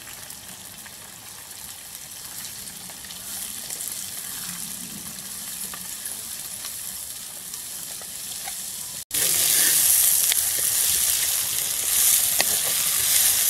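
Sliced onions sizzling in hot oil in a clay pot, stirred with a wooden spatula. The sizzling jumps suddenly louder about nine seconds in.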